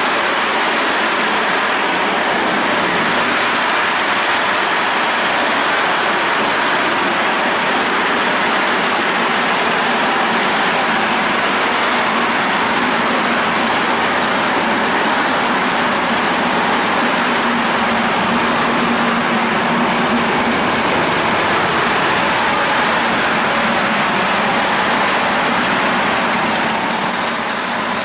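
A train passing on the rails: a steady rushing noise of wheels on track, with a thin, high wheel squeal coming in near the end.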